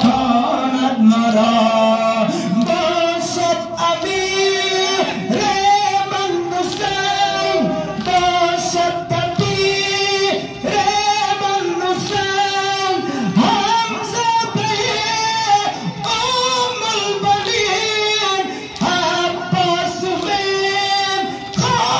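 A noha, a Muharram lament, chanted in a high voice with long held notes, while mourners' hands strike their chests (matam) in time.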